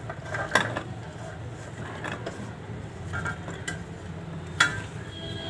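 Chickpeas tipped from a steel bowl into a steel mixer-grinder jar: a few scattered light clinks and taps of metal on metal, the sharpest about four and a half seconds in.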